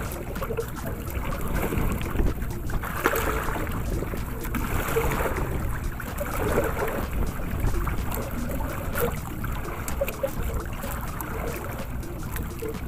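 Wind buffeting the microphone over water lapping and slapping against a small outrigger canoe, a steady rough rumble with faint scattered ticks.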